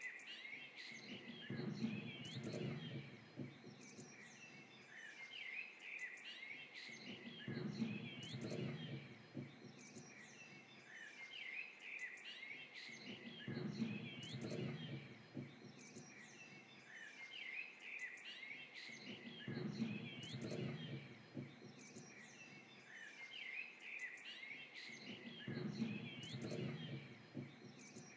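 Birds chirping and twittering continuously, many short calls high in pitch, faint. Under them a low rushing swell rises and fades about every six seconds.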